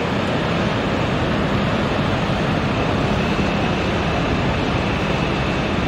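Airbus A340-500's four Rolls-Royce Trent turbofans running as the airliner rolls out on the runway after landing: a steady, loud engine roar with deep rumble, and a faint high whine coming in about halfway through.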